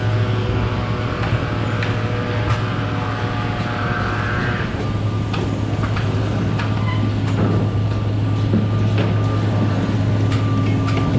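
A steady low drone of construction machinery, with scattered sharp knocks and clatters from plywood and 2x4 concrete formwork being pried loose and stripped.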